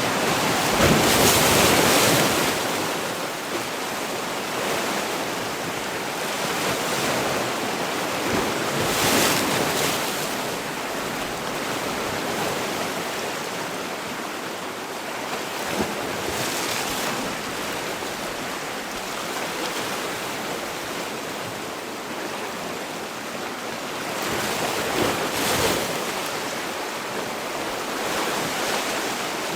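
Sea waves on a shore: a steady rush of surf that swells into a louder breaking wave about every eight seconds, four times.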